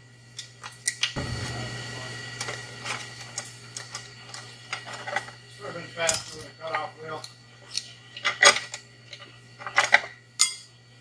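Steel transmission parts clinking, knocking and scraping as the clutch pack and plates are pried and lifted out of a Turbo 350 automatic transmission case with hand tools. The clicks come irregularly throughout, with a longer scrape about a second in and the loudest knock a little past the middle.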